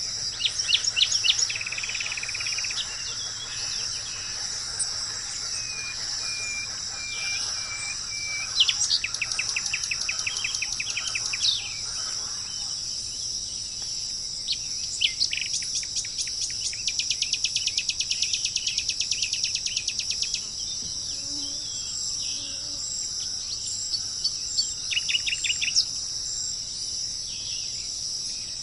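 Several wild birds calling and trilling over a steady high-pitched chorus of insects, with repeated sharp notes, falling whistles and a long fast trill in the middle.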